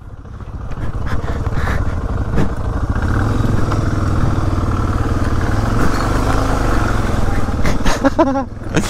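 Off-road motorcycle engine running steadily while riding a dirt trail, building up over the first second.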